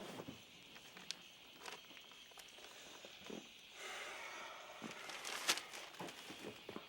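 Scattered small clicks, knocks and rustles over low room noise, with a brief hiss near the middle and one sharper click about five and a half seconds in.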